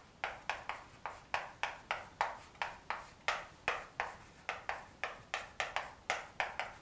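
Chalk writing on a blackboard: a quick run of short taps and scratches, about three to four strokes a second.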